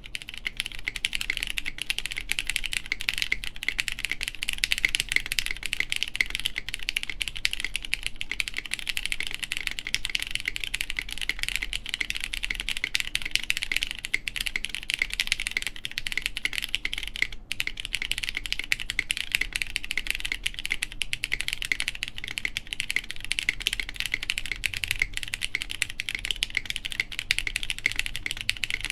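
Steady, fast typing on a plateless Gok Lily mechanical keyboard with lubed Cherry MX Brown tactile switches and GMK keycaps, the spacebar on a Kailh BCP switch with lubed Cherry stabilizers.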